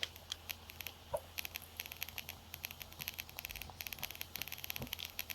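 Small metal tools scratching and clicking against a tiny alarm clock movement, working at its conical pins to get them out: a rapid, irregular run of faint light ticks and scrapes.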